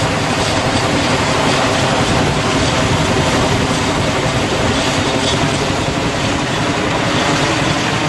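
Boeing CH-47 Chinook tandem-rotor helicopter running, its rotors and turbine engines making a loud, steady rumble.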